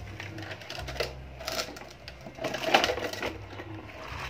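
A plastic toy dump truck being pushed across paving stones: an irregular rattling clatter with a few knocks, the loudest a little past the middle.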